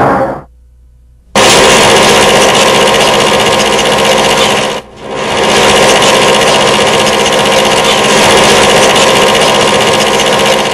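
Loud, steady mechanical machine noise that starts abruptly after about a second of near silence and dips briefly about five seconds in.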